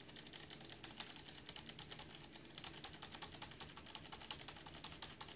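Rapid, irregular clicking, many clicks a second, over a steady low hum.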